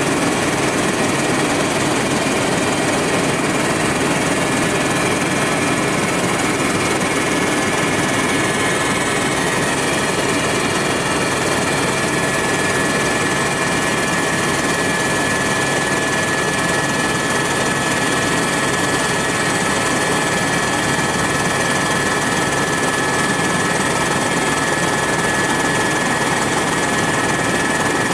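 Helicopter in steady flight heard from inside the cabin: a constant loud drone of engine and rotor, with a steady high-pitched whine running through it.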